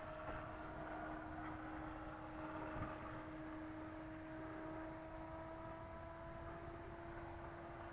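E-flite Carbon-Z Cub RC airplane in flight, a steady droning hum that creeps slowly up in pitch, over the rumble of strong wind on the microphone.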